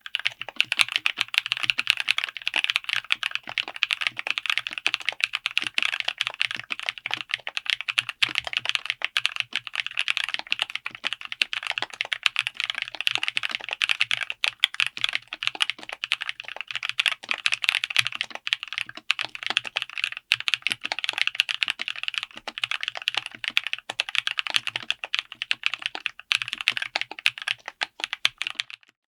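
Fast, continuous typing on a mechanical keyboard with LEOBOG Ice Soul light tactile switches (30 gf), built on an FR4 plate in a DZ60 board and Tofu60 aluminium case: a dense, even run of keystroke clacks that stops just before the end.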